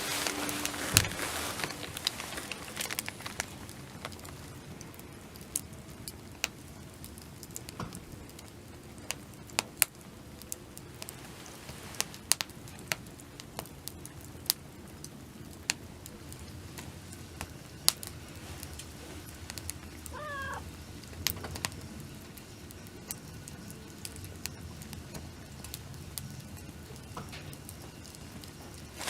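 Wood campfire crackling: scattered sharp pops over a low steady background. About twenty seconds in there is one short, wavering call.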